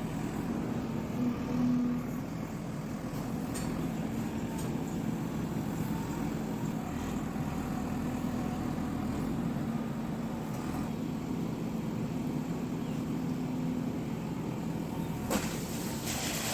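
JCB backhoe excavator's diesel engine running steadily, its pitch wavering slightly as it works. A brief sharp crack comes near the end.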